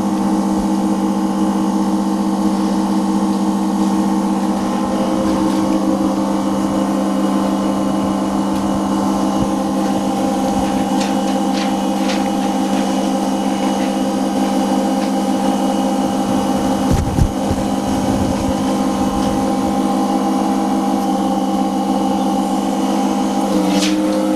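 The pump and air-compressor motor driving an OCA film laminating machine, running with a steady mechanical hum made of several steady tones. There are a few light ticks partway through, and the hum shifts pitch near the end.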